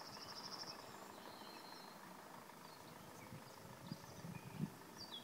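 Quiet outdoor field ambience: a faint, rapid high-pitched trill in the first second, then a few soft low thumps near the end.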